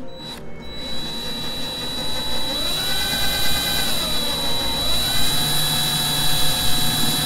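Power drill running with a small bit against a broken-off screw head, starting just under a second in. Its whine rises, sags and recovers midway as the bit loads up and slips off the hardened screw into the fiberglass around it.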